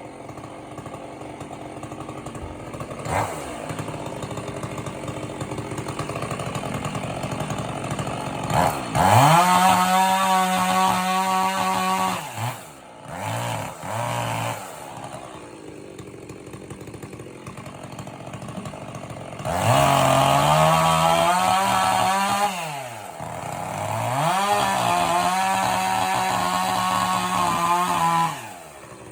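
Chainsaw engine idling, then revved to full throttle three times for about three seconds each, with two short blips in between; each time the pitch sweeps up quickly, holds steady, then drops back to idle.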